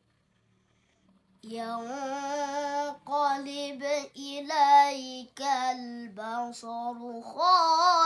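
A child's voice chanting Quran recitation (tilawah) in the melodic murattal/mujawwad style, starting about a second and a half in after near silence. Long held, ornamented notes with short breaks, stepping up in pitch near the end.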